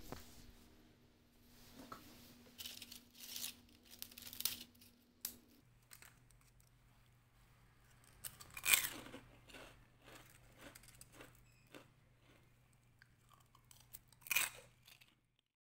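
Faint, irregular crunching and crinkling of crisp fried kembang goyang rosette cookies on paper, with two louder crunches, one past the middle and one near the end, over a faint steady hum.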